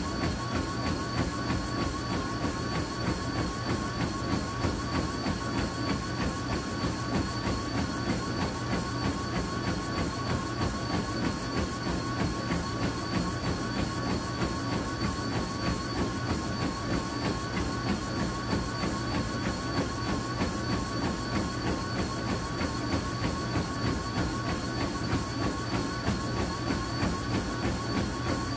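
Treadmill running at a steady speed with a constant motor whine and belt hum, and a runner's feet striking the deck in a quick, even rhythm.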